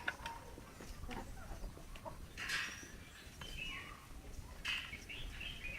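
Chickens clucking and calling, with louder, harsher calls about two and a half seconds in and again near five seconds.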